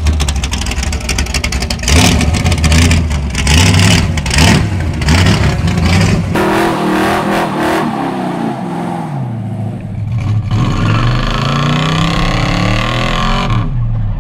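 Muscle-car engine revving hard: a choppy run of throttle blips for the first few seconds, then from about six seconds in the revs climbing and falling over and over.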